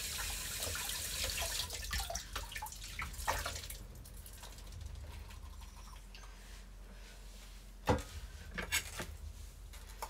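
Kitchen tap running into the sink as pak choy is rinsed under it, the flow stopping about three and a half seconds in, followed by drips and splashes from the wet leaves. A single sharp knock comes near the end, then a few light clinks.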